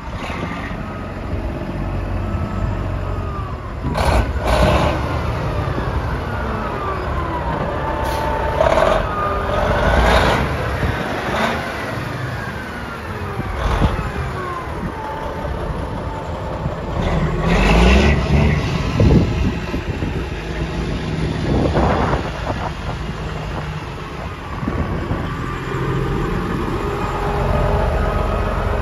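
Detroit Series 60 inline-six diesel of a 1996 Freightliner FLD tractor running at idle, a steady low rumble, with several short sharp sounds through it.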